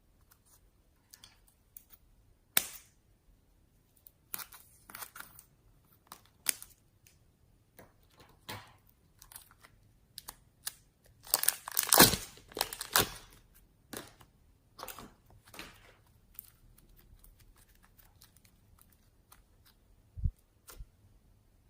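Slime and clay being mixed by hand, giving sticky clicks, crackles and tearing sounds that are densest about halfway through, with a single low thump near the end.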